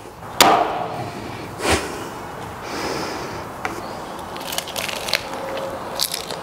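A meat cleaver chopping down through a barbecued dim sim onto a wooden cutting board: two sharp knocks a little over a second apart, the first the loudest. Then quieter crackly sounds of biting into and chewing the dim sim.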